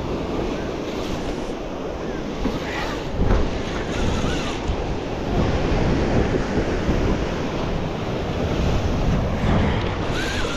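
Waves breaking in the surf and wind blowing across the microphone, a steady rushing noise.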